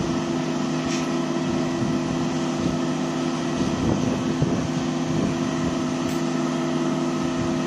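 AW7120 rice combine harvester's engine and unloading auger running steadily as it empties harvested rice grain into a truck bed, a constant low engine hum over a steady hiss.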